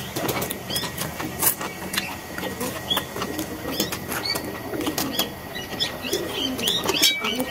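Noodles being eaten: slurping and chewing, with frequent light clicks of a steel fork against a steel plate. Small birds chirp repeatedly in the background.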